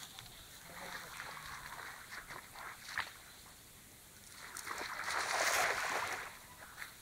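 A cast net landing on the water: its weighted rim strikes the surface in a spreading splash about five seconds in that lasts over a second. Before it, smaller splashes and sloshing of water around the thrower's legs.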